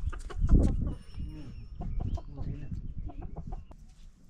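A chicken clucking, with scattered short knocks and a loud low thump about half a second in.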